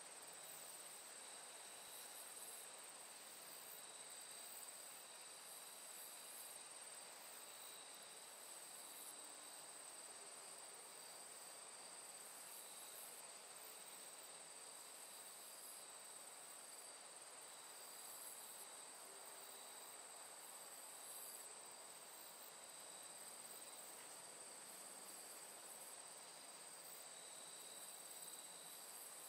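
Near silence: a faint steady hiss with a thin, unchanging high-pitched whine.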